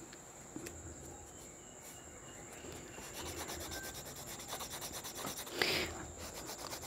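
Oil pastel rubbed back and forth on paper, colouring in an area. Faint at first, then rapid, even strokes from about halfway, with one louder scrape near the end.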